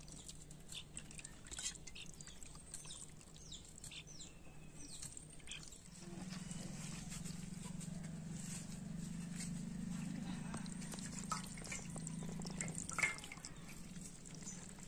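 Hands washing raw chicken pieces in a steel bowl of water: splashing, squelching and dripping as the pieces are stirred, lifted and squeezed. A low steady hum comes up about six seconds in.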